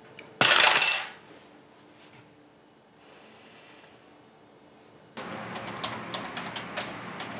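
A loud, ringing clatter of kitchenware, metal and glass, lasting under a second near the start. About five seconds in, quick typing on a computer keyboard begins.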